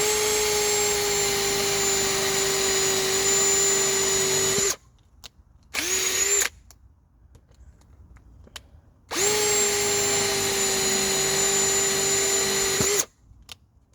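Bauer cordless compact hammer drill running at full speed with a larger bit: a steady motor whine for nearly five seconds, a short burst of under a second, then another run of about four seconds.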